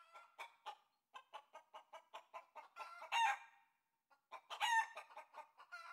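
Chickens clucking in a quick run of short clucks, with a louder, longer call about three seconds in and another a little over a second later.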